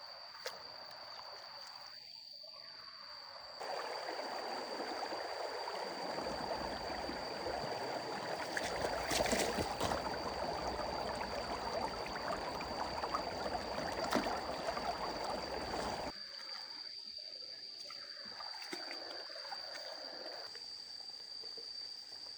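Water running or pouring in a steady rush that starts suddenly a few seconds in and cuts off suddenly past the middle, with a few sharp clicks in it. A steady high-pitched chirring, like insects, runs underneath throughout.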